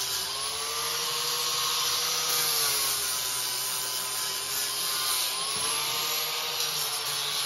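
Electric angle grinder running with a disc on steel, its motor pitch rising and sagging twice as the disc bears on the metal of a grille frame, over a steady grinding hiss.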